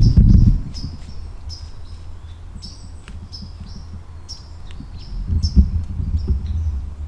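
A small songbird repeating a short, high chip note about twice a second. Low rumbling thumps come right at the start and again about five to six seconds in.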